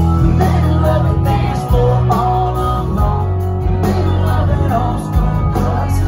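Live country-rock band playing loud over a PA, a male lead singer over electric guitars and a heavy bass, heard from within the concert crowd.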